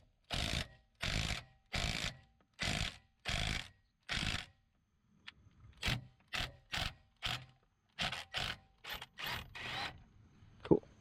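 Impact wrench fired in short trigger bursts, driving a double-nutted wheel stud into the hub until it seats tight: about six half-second bursts evenly spaced, a pause, then a quicker run of shorter bursts.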